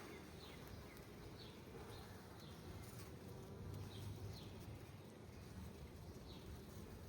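Faint buzzing of honeybees around an open hive, with short high chirps repeating about once a second.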